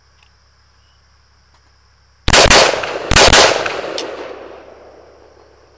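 Century Arms Golani (Galil-pattern) 5.56 mm rifle firing shots in quick succession, in two groups about a second apart starting a couple of seconds in, with the reports echoing away over the next two seconds.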